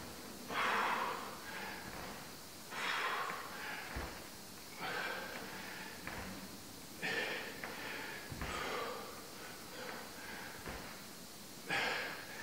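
A person breathing hard while exercising, with short forceful exhalations about one every two seconds, and a few soft low thuds in between.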